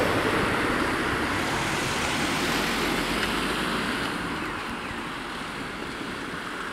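LINT 41 diesel railcar's running noise fading steadily as it moves away after passing the level crossing.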